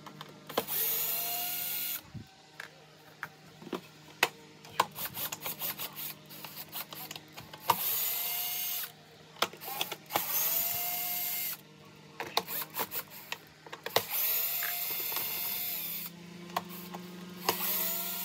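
Electric drill-driver backing screws out of a plastic vacuum cleaner housing: five short runs, each rising in pitch as the motor spins up and then holding steady. Between the runs come sharp clicks and clatter as the bit is seated and the screws are handled.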